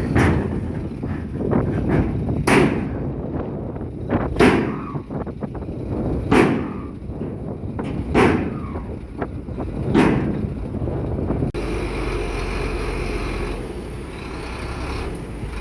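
Heavy diesel earthmoving machinery running with a steady rumble, struck by six loud sharp bangs about two seconds apart. The sound changes abruptly a little past halfway to a steadier engine noise with no bangs.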